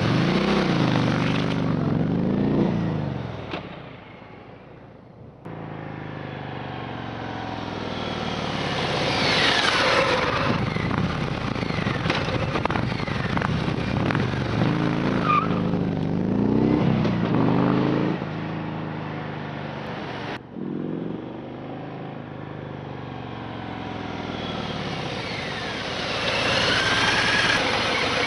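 2018 Harley-Davidson Sport Glide's stock Milwaukee-Eight 107 V-twin being ridden, its engine note rising and falling with the throttle over several passes. The sound fades about four seconds in and cuts in again suddenly twice, near five and twenty seconds.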